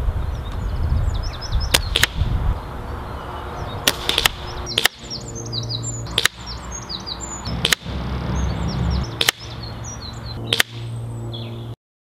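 Brocock Compatto air rifle being shot repeatedly, sharp cracks of the shots mixed with the metallic clicks of the bolt being cycled between them, over a low rumble. Birds chirp in the background, and the sound cuts off suddenly near the end.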